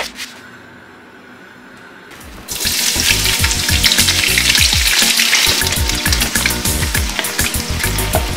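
Sliced red onions dropped into hot oil in a pot, frying with a loud, dense sizzle that starts suddenly about two and a half seconds in.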